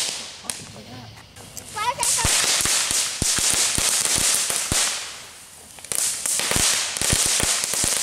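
Ground fountain firework spraying sparks: a loud hiss full of sharp crackles that dies down twice and flares up again.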